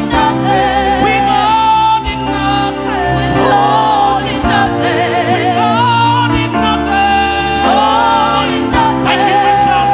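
Live gospel worship music: a singer holds long notes with vibrato over a sustained instrumental accompaniment.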